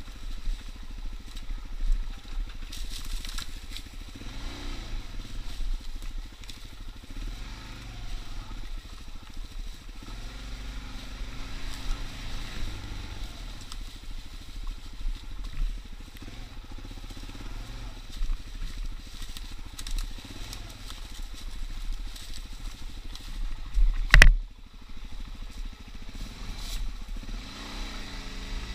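Suzuki DR-Z dirt bike's single-cylinder four-stroke engine running as it is ridden along a snowy trail, its pitch rising and falling with the throttle. A single sharp, loud knock comes near the end.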